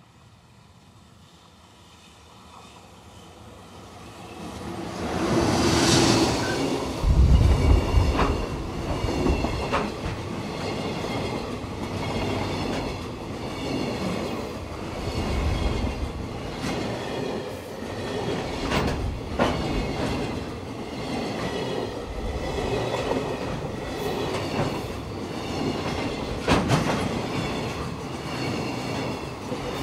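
JR Freight EF210 electric locomotive growing louder on its approach and passing close by at about six seconds in, then a long container freight train rolling past with a steady rumble and repeated clickety-clack of wagon wheels over the rail joints.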